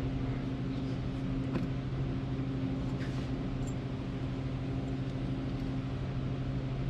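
Steady low machine hum with a few faint clicks over it.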